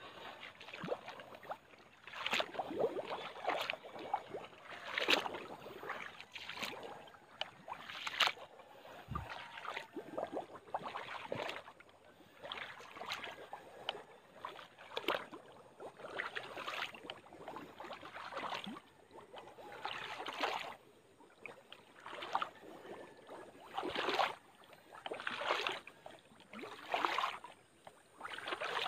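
Footsteps wading and sloshing through shallow muddy water, about one step a second.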